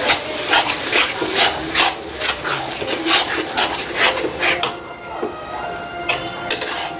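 A cooking spoon scraping and stirring chicken mince and masala in a pan, with rhythmic strokes about twice a second. The stirring stops about five seconds in, with a couple of single scrapes near the end.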